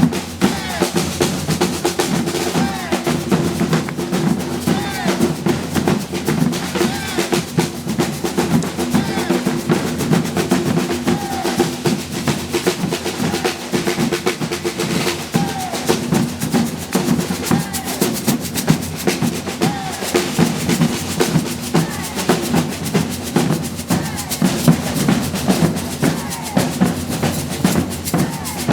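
Brazilian percussion ensemble drumming a fast, steady, driving rhythm of many drums together.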